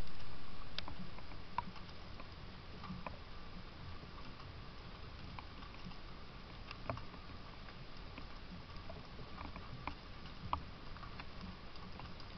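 Faint scattered clicks and scratches of gray squirrels climbing on and feeding at a wooden peanut feeder, heard over the steady hiss of a trail camera's microphone. The hiss is louder at the start and fades over the first few seconds.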